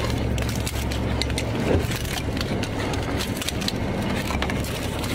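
Boat engine running as a steady low hum, with scattered clicks and scrapes of southern rock lobsters' shells and legs against the wire mesh of the pot as they are handled.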